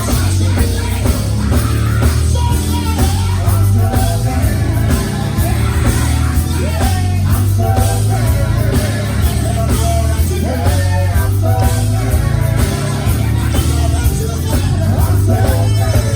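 Live gospel quartet music: singing over a full band with a heavy bass line and drums.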